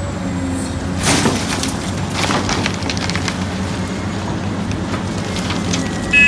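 Large Caterpillar crawler excavator's diesel engine running steadily while it digs, with a crackling clatter of earth and rocks about a second in and scattered knocks over the next couple of seconds. A short loud beep starts at the very end.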